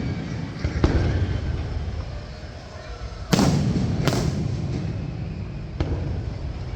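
Fireworks display: aerial shells bursting with sharp bangs, one about a second in, two close together around three to four seconds in and a lighter one near the end, over a continuous low rumble.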